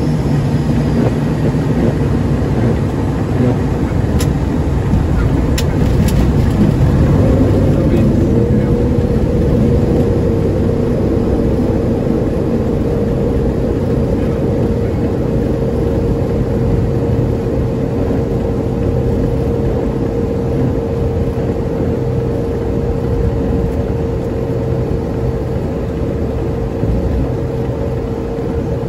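ATR 72-500 cockpit noise during the landing rollout: the Pratt & Whitney PW127 turboprop engines and propellers give a loud, steady rumble mixed with the rush of air, easing off slowly as the aircraft slows. A steady whine comes in about eight seconds in and holds.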